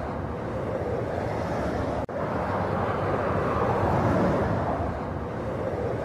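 Steady motorway traffic, the tyre and engine noise of cars passing below, swelling and fading as each vehicle goes by. The sound cuts out briefly about two seconds in.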